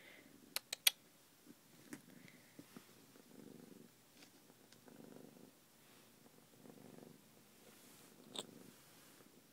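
Domestic cat purring, the purr swelling and fading in a slow rhythm about once a second. Three quick sharp clicks come just after the start, and another near the end.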